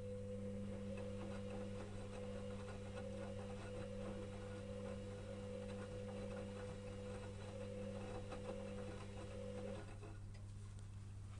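Electrolux EWS 1045 washing machine's motor turning the drum during the wash: a steady motor whine with light clicking from the tumbling wet laundry, stopping near the end and leaving a low hum.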